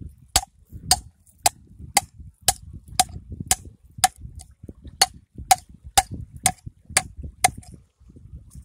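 Claw hammer knocking on a conch shell, about two sharp knocks a second, some fifteen strikes in all, breaking into the shell to get the conch out.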